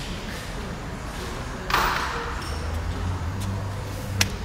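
Factory-floor ambience: a steady low hum, a short burst of hiss about two seconds in, and a couple of sharp metallic clicks near the end.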